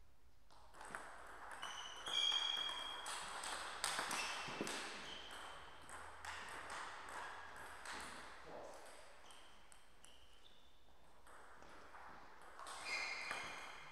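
A table tennis rally: the plastic ball clicks sharply off the bats and the table in quick succession for a few seconds. Short high squeaks from shoes on the court floor come during the rally and again near the end.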